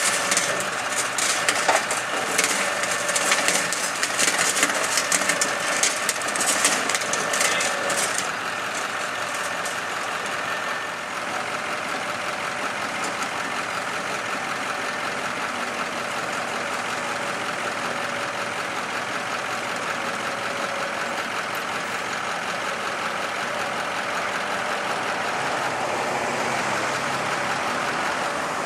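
Heavy truck engine idling steadily, with a crunching, crackling clatter over roughly the first eight seconds.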